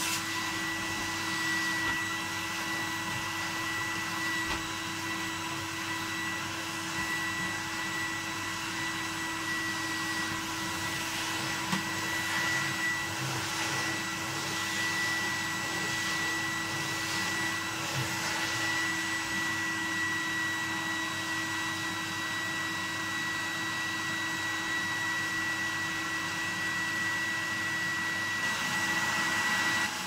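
1988 Numatic Henry HVR200 cylinder vacuum cleaner running steadily, its motor giving an even, high whine over a constant rush of suction air.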